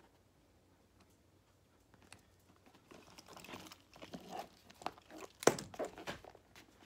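Handling of a leather handbag and its shoulder strap: irregular rustling and rubbing with small clicks of the metal strap hardware, starting after about two quiet seconds. One sharp click about two-thirds of the way in is the loudest sound.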